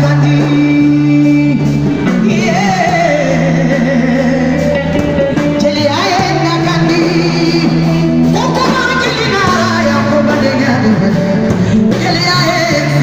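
A woman singing an ornamented, wavering melody into a microphone, amplified over a live band with electric guitar and drums.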